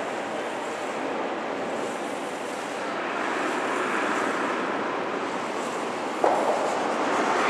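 Steady rushing noise of a curling ice hall, with one sharp knock about six seconds in.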